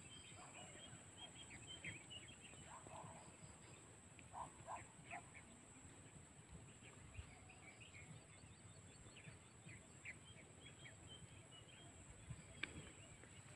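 Faint bird chirps, short and scattered, in quiet open countryside, over a steady high-pitched whine.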